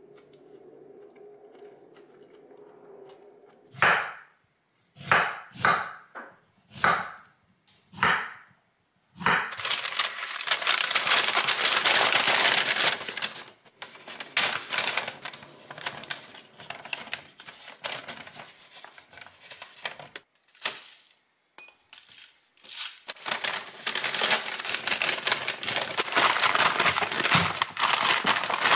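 A knife cutting through zucchini onto a wooden cutting board, about six separate cuts, followed by a brown paper bag crinkling and rustling as zucchini slices go in. Near the end, the closed paper bag is shaken to coat the slices with flour.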